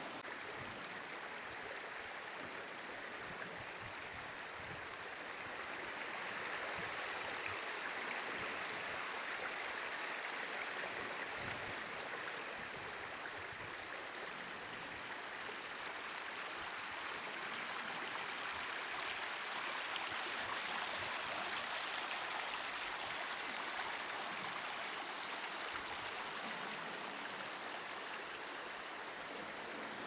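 Canyon stream running steadily over rock: a constant rush of flowing water that swells slightly a couple of times.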